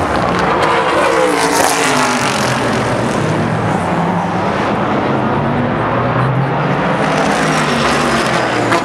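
GT and prototype race cars passing one after another at racing speed. Their engine notes drop in pitch as a car goes by, most clearly about a second to two seconds in.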